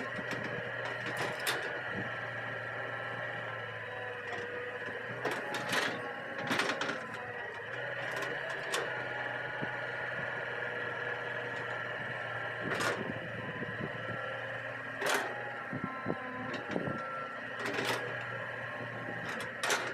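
Hitachi EX200 hydraulic excavator working, its diesel engine and hydraulics running with a steady, high whine, broken by occasional sharp metallic knocks.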